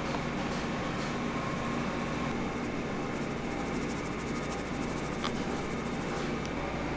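Steady mechanical background hum, with a few faint light clicks.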